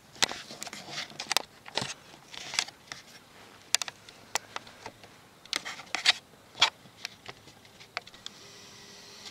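Handling noise from a handheld camera: irregular sharp clicks and light scrapes as it is moved and steadied. In the last second a faint steady whine, the camera's zoom motor.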